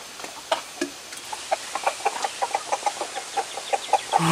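Chickens clucking in short, quick notes, about three or four a second.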